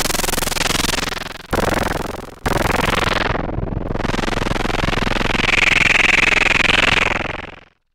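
Homemade analog synthesizer prototype playing noisy, distorted sounds: two short hissing hits that die away, then a long one whose tone sweeps down and back up as its knobs are turned, with a brighter whistling tone building near the end before it fades out.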